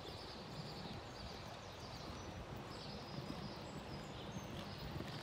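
Outdoor ambience with birds chirping now and then over faint, muffled hoofbeats of a horse cantering on arena sand.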